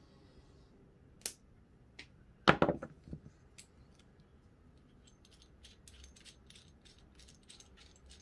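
Small metallic clicks and rattles of a PL-259 coax connector being worked by hand onto the end of a coax cable, with one louder knock about two and a half seconds in and a run of quick light ticks in the last few seconds.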